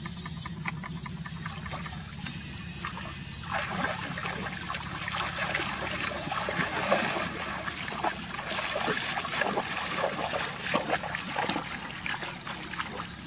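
Water trickling and splashing in many small irregular splashes, growing busier about three and a half seconds in.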